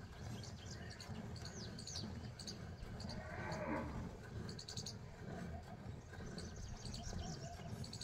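A water buffalo being hand-milked into a nearly full steel bucket of frothy milk, with birds chirping throughout. A short call rises and falls about three seconds in.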